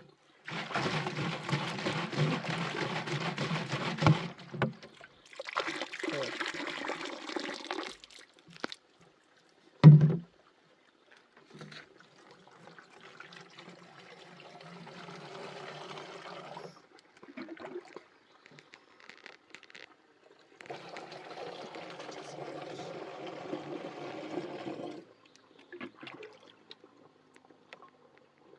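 Water being poured into a container in four separate pours of a few seconds each. There is a single loud knock about ten seconds in.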